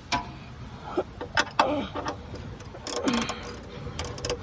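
Hand ratchet clicking and clanking against the oil pan's drain bolt, in irregular clusters of sharp metal strikes.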